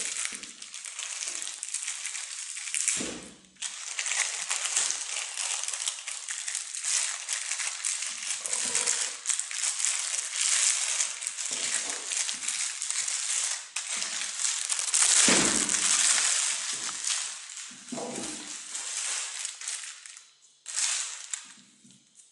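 Clear plastic packaging bag crinkling and rustling continuously as it is opened and a bendy tripod is pulled out of it, with a short break about three and a half seconds in; it dies away near the end.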